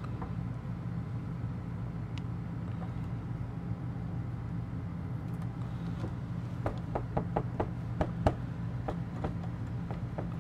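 Steady drone of the RV's air conditioner running. From about two-thirds of the way in come a run of small clicks and taps: a screwdriver working the mounting screws out of a wall-mounted soundbar.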